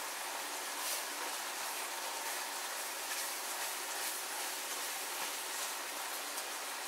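Browned ground beef sizzling in a cast-iron skillet as it is stirred with a spatula: a steady crackling hiss with a few brief pops.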